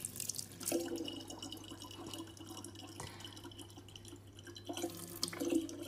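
Thin stream of water from a kitchen faucet trickling into the neck of a large plastic water bottle.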